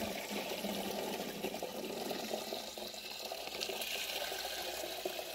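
Water pouring off a tilted bucket of soaked, fermented barley as the soaking water is drained from the grain.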